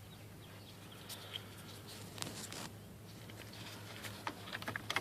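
Faint, scattered clicks and rustles of hands working the stock turn-signal flasher relay out of its socket in a 2003 Jeep Wrangler TJ, over a steady low hum.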